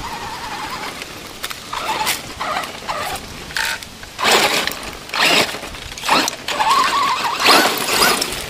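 Brushless electric motor (Hobbywing EzRun 13T) of a Traxxas Stampede 2WD RC truck whining as it is throttled, with tyres scrabbling and crunching over loose stones in a run of loud bursts from about four seconds in.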